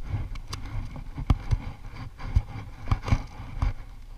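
Wind rumbling on the microphone, with about seven scattered sharp clicks and knocks from the baitcasting rod and reel being handled right by the camera.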